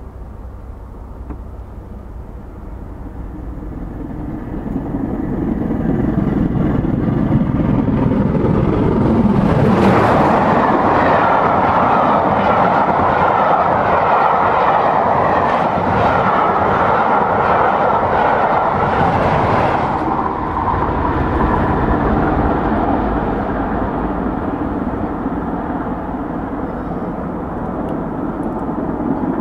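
A steam train at speed approaches and reaches the microphone about ten seconds in, then rushes past for about ten seconds. After that it drops away abruptly and fades as it recedes.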